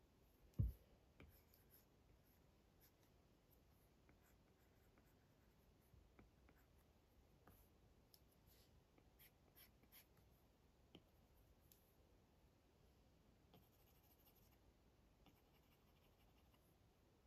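Apple Pencil tapping and sketching on an iPad's glass screen: faint scattered taps and light strokes, with one louder low thump about half a second in.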